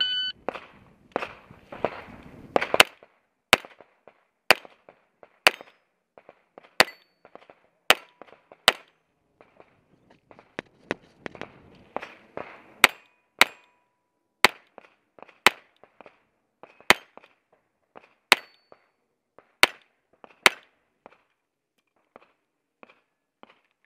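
Sig P226 pistol with a .22LR conversion kit firing a string of about sixteen sharp cracks, roughly one a second with a short break in the middle, with fainter ticks between the shots.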